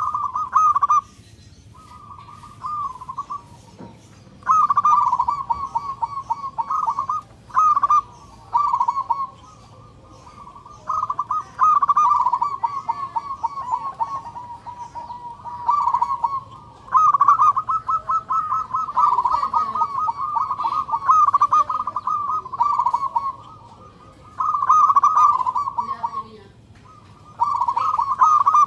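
Zebra dove (perkutut) singing: a string of phrases of rapid, trilled cooing notes, each phrase one to three seconds long with short pauses between, the longest run starting near the middle.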